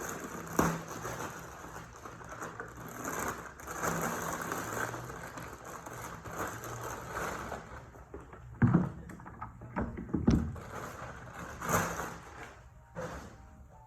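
Unboxing handling of a robot vacuum's packaging and parts: rustling and scraping for the first half, then several short knocks about a second or two apart as pieces are handled and set down.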